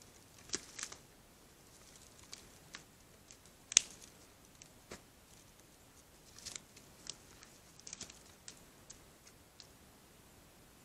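Irregular sharp clicks and cracks of twigs and dry forest litter under large animals moving past, one crack a little before halfway much louder than the rest.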